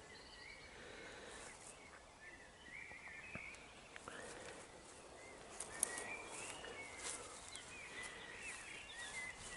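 Faint birdsong: a bird singing short warbling phrases over and over in the quiet evening air.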